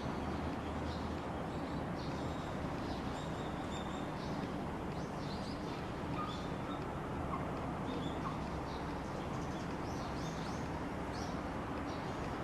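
Small birds chirping, with short high calls scattered through, over a steady low background rumble.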